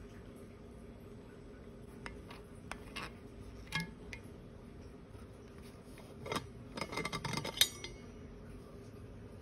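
Light clicks and taps as an AquaFlask stainless-steel bottle and its plastic screw lid are handled, then a quick run of rattling clicks as the lid is unscrewed, ending in one sharp, ringing metallic clink.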